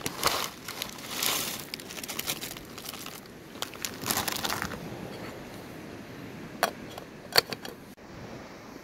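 Crinkling and rustling in several bursts through the first half, then two sharp clicks near the end.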